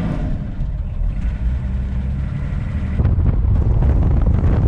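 Vintage camper van driving: steady engine drone with road noise, growing louder and rougher about three seconds in.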